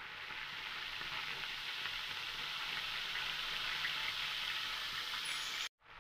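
Oil sizzling steadily around whole fish frying in an aluminium pan. The sizzle cuts out abruptly for a moment near the end and comes back a little quieter.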